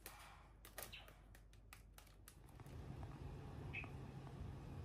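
Near silence: a few faint, sharp clicks in the first half, then a faint low hum that comes in about halfway through.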